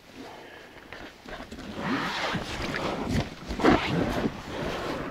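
Inflatable packraft being handled and brought ashore onto rocks: the hull fabric rubbing and scraping with a few knocks. It starts quiet and grows louder from about a second and a half in.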